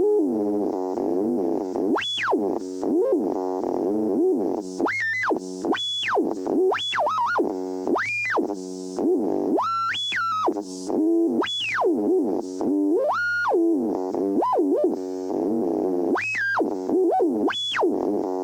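Radio transmitter scanning across frequencies: a buzzy electronic drone with whistling tones that keep gliding up and down in pitch, several sweeping up to a high squeal and back down.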